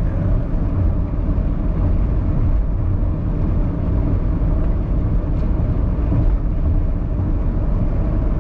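Steady road and engine noise heard inside a car cruising at highway speed, mostly a low, even tyre-and-engine noise.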